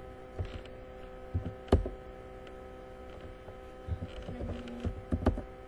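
Computer keyboard keystrokes and clicks as a spreadsheet formula is typed in. A few scattered clicks, the sharpest about two seconds in and several more in the last two seconds, over a steady electrical hum.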